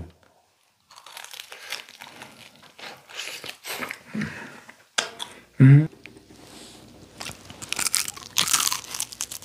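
Close-up eating sounds: crunching, biting and chewing into charcoal-grilled rabbit meat, a run of short crackly bites and chews. A brief, loud vocal sound about halfway through.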